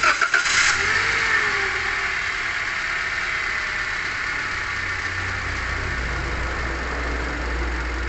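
Toyota Great New Avanza four-cylinder petrol engine starting: a brief crank as it catches at the very start, then idling steadily as the revs settle down. The idle is smooth, with no crackling rattle, now that the alternator and water pump bearings have been replaced.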